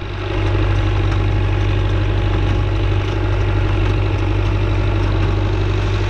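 Renault 651-2 tractor's diesel engine running steadily at close range with a deep, even hum.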